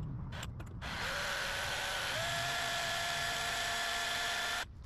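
Cordless drill boring a hole through a metal plate: a steady motor whine after a few short knocks as the bit is set, its pitch stepping up slightly about two seconds in, then stopping abruptly near the end.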